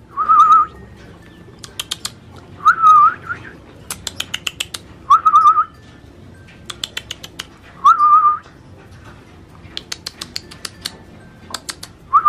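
A person whistling to call a tame lovebird: a short whistle, a quick upward swoop into a warble, repeated about every two to three seconds. Between the whistles come runs of short, sharp clicks.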